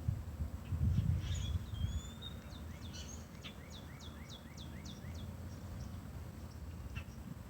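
A songbird singing: a short rising whistle, then a quick run of about eight repeated down-slurred notes, over a low rumble that is strongest in the first two seconds.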